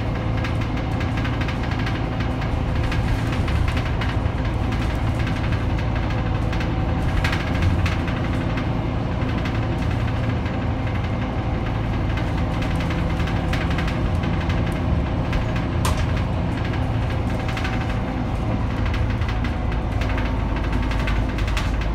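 Scania K310UB bus's rear-mounted diesel engine running with a steady low hum, heard from inside the passenger cabin. A single sharp click comes about sixteen seconds in.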